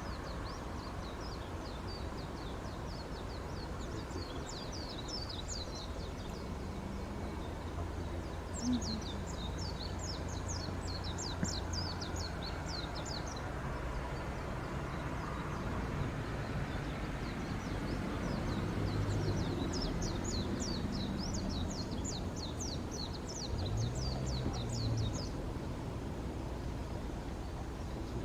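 A bird calls in rapid, high chirping trills, three bouts of a few seconds each, over a steady low rumble.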